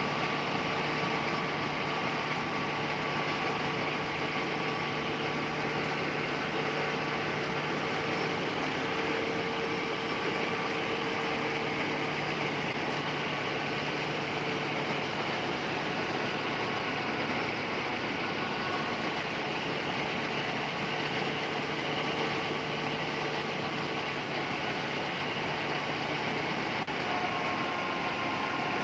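Tractor engine under steady load driving a paddy thresher through its PTO shaft, with the thresher's drum, fan and belts running continuously as rice straw is blown out. An even, unbroken machine noise with a few faint steady tones.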